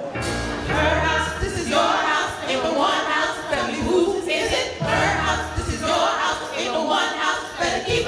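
Musical-theatre number: several voices singing together over live stage accompaniment, with low beats about half a second in and again about five seconds in.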